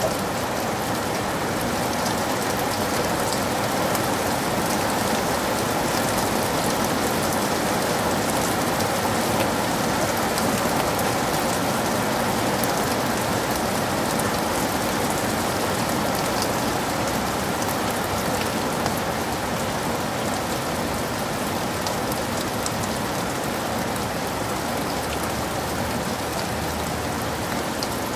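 Heavy rain falling steadily, a dense even hiss with fine drop patter throughout.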